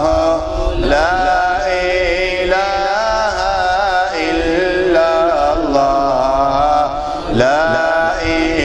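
A man chanting an Arabic devotional ode (munajat) in long, drawn-out melismatic notes that bend and waver, with short breaks between phrases.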